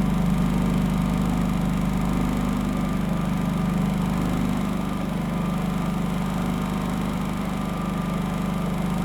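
Pulsar G450RN inverter generator's single-cylinder four-stroke engine running steadily, heard from right beside it. The low hum eases slightly about halfway through.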